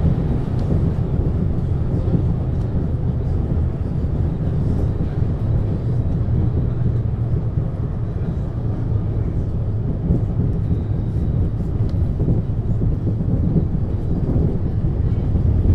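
Steady low rumble of a 1972 MAN GTW 72 Wuppertal Schwebebahn suspension railway car, even in level throughout.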